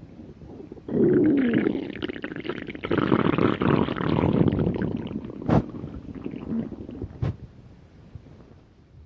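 A hungry stomach growling: a long, irregular gurgling starts suddenly about a second in, with a short squeaky gliding note at its onset, and slowly fades away near the end. Two sharp clicks come at about five and a half and seven seconds.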